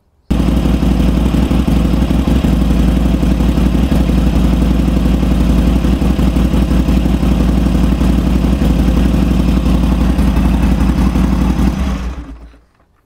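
Harley-Davidson Sportster 883's air-cooled V-twin engine idling steadily, then stopping near the end.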